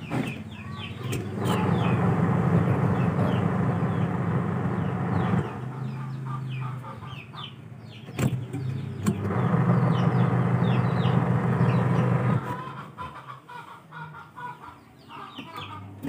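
Sharp twin-tub washing machine motor humming in two stretches of about four and three seconds, with a sharp click between them: a capacitor-start motor that hums but will not start turning on its own unless its pulley is nudged, which the repairer takes for a failing capacitor. Birds chirp in the background.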